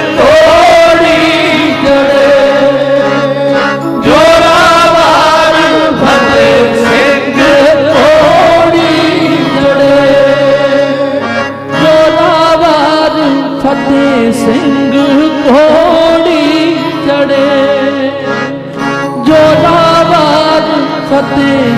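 Men singing a slow Punjabi devotional melody in long, wavering, drawn-out notes over a steady held harmonium accompaniment.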